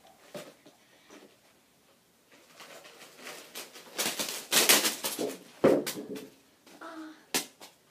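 Mini candy canes tipped from a container over a child's head, falling and clattering in a scatter of quick ticks and knocks that is densest about halfway through, with one heavier knock just after. A short vocal sound comes near the end.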